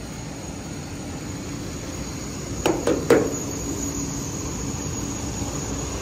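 GE GEnx turbofan engine running at idle: a steady rush with a thin high whine over it. Three sharp knocks in quick succession about two and a half to three seconds in.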